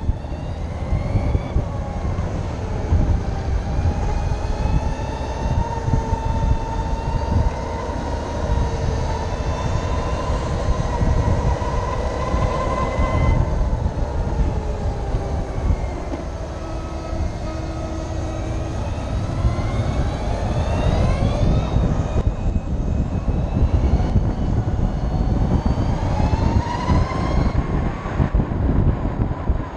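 Harley-Davidson LiveWire electric motorcycle under way: its motor whine glides down and up with road speed, rising steeply twice in the second half as the bike accelerates hard. Heavy wind rumble on the microphone sits under it throughout.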